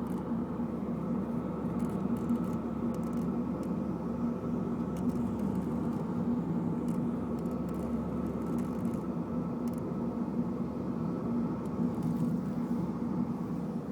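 BMW Z4 heard from inside the cabin while running: a steady drone with faint, irregular high-pitched ticks and chirps over it. This is the static-like squeak the owner says is always there.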